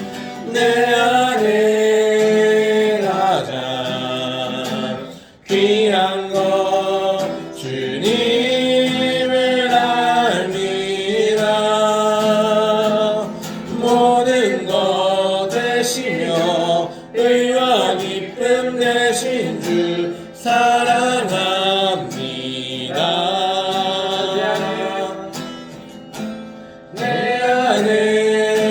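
Worship song sung to acoustic guitar accompaniment, in phrases of a few seconds each with short breaths between them.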